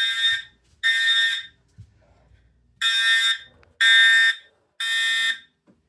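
EST Integrity fire alarm horn sounding the temporal code-3 pattern: half-second blasts about a second apart in groups of three. The last two blasts of one group are followed by a pause, then a full group of three.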